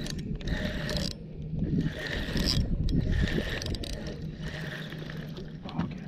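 Spinning reel being cranked in short spurts, about one a second, its gears whirring as line is wound in, over a steady low rumble.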